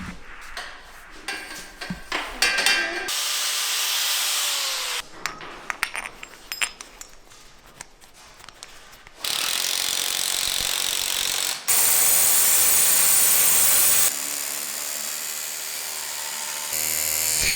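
Workshop tool sounds in several short cuts: clicking and ratcheting at first, then a few seconds of loud, even power-tool noise, and in the last few seconds a steadier motor sound.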